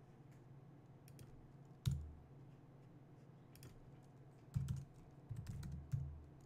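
Typing on a computer keyboard: scattered keystrokes, one sharp key press about two seconds in, then a quick run of keys a little past four and a half seconds.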